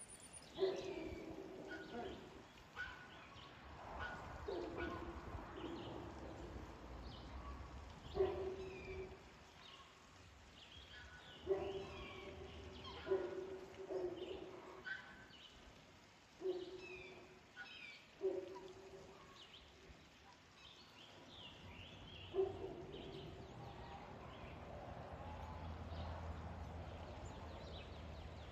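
Black swans calling: about a dozen short, tuneful calls spread through the stretch, with high bird chirps and peeps throughout.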